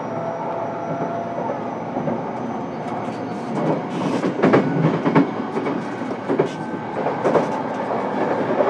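JR East E233-7000 series commuter train running, heard from inside motor car MoHa E233-7424: steady rolling noise with a faint steady whine for the first few seconds. From about three seconds in come a run of clacks as the wheels pass over rail joints.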